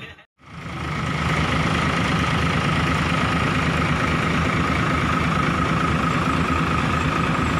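Diesel coach bus engines idling steadily: an even low rumble with a thin steady whine above it. It fades in after a brief silence at the start.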